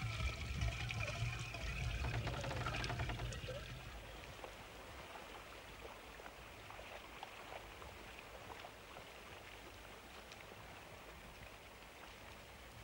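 Water pouring and splashing from a well bucket into clay jars for about the first four seconds, then only a faint steady hiss.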